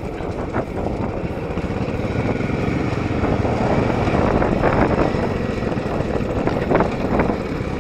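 Royal Enfield Classic 500's air-cooled single-cylinder engine running as the motorcycle rides along a rough dirt track, getting louder through the first half, with a few short knocks.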